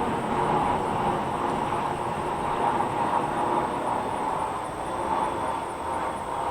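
Steady outdoor background noise picked up by a Rode VideoMic Go on-camera microphone: an even, traffic-like rush with no distinct events, plus a thin, steady high-pitched tone above it.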